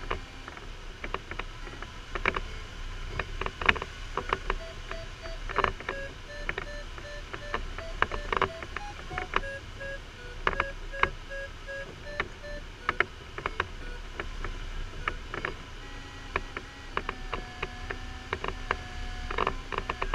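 A glider's electronic variometer beeping: repeated short beeps that step in pitch, the sound of the glider climbing in lift, then a steady unbroken tone near the end, as the vario does in sink. Sharp ticks and knocks and a low rush of airflow run underneath in the cockpit.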